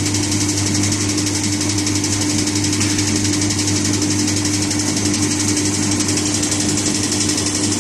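Vaner V-C02 mini cable granulator starting up on its frequency inverters: a steady electric-motor hum and whir with a constant tone and a high hiss, and no break or rise in pitch.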